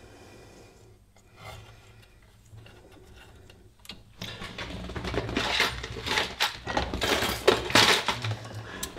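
Tools and small parts being handled on a workbench: a few soft taps, then from about four seconds in a loud stretch of rummaging, rustling and clattering with sharp clicks.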